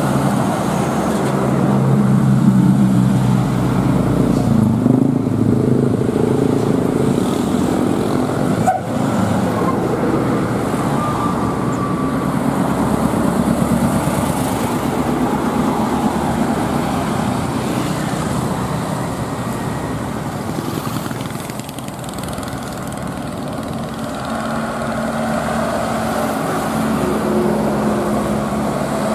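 Heavy diesel trucks passing close by one after another: a Hino tractor pulling a container, a dump truck in a line of traffic, then a Mitsubishi Fuso box truck. The engine note changes as each one goes by.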